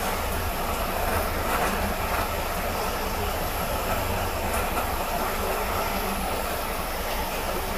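Jeweller's soldering torch burning steadily while the joint of a silver bangle is soldered: an even rushing noise with a low rumble underneath.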